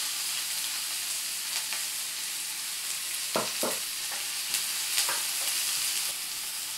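Chopped red onion sizzling in hot oil in a nonstick frying pan, freshly added, with a few scrapes and knocks of a wooden spatula stirring it; the strongest two come close together about three and a half seconds in.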